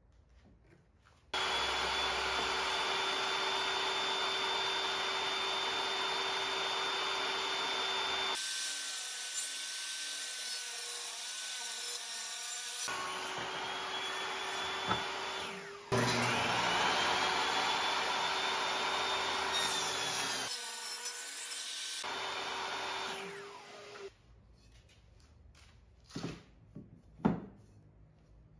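Table saw running and cutting a red oak board, in several passes joined by hard cuts, with the motor spinning up partway through. Near the end the blade winds down, then two sharp knocks.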